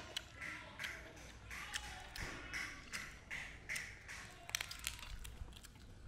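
Eating sounds at the table: a string of small clicks, crackles and taps as steamed shrimp are peeled and eaten by hand, with chewing and light knocks on plates.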